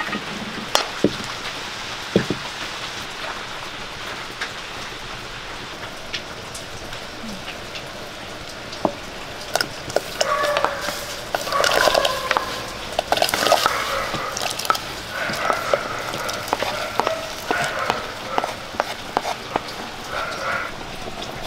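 Wood fire crackling under a clay pot, with light clicks and knocks as shallots are spooned from a wooden bowl into the hot water. Background voices come in about halfway through and are the loudest sound in the second half.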